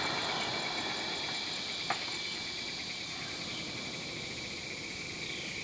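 A steady high-pitched insect chorus of trilling at dusk, with one brief click about two seconds in.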